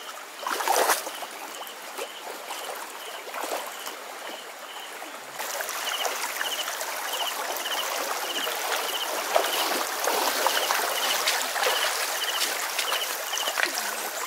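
Shallow stream water running and trickling, with a splash about half a second in as someone wades through it; about five seconds in the rushing water grows louder. A high chirp repeats steadily, about three every two seconds.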